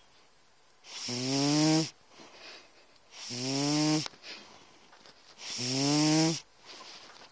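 Tomcat snoring: three snores about two seconds apart, each about a second long and rising slightly in pitch, with softer breathing between them.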